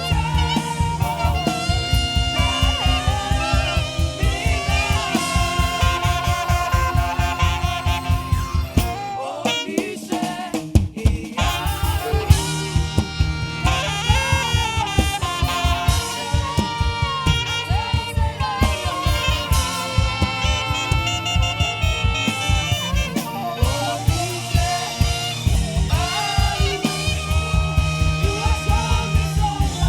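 Live band music led by saxophone over a drum kit and bass, with a steady, upbeat afrobeat/makossa groove. About nine seconds in, the beat drops out for a couple of seconds with a few loud drum hits, then comes back.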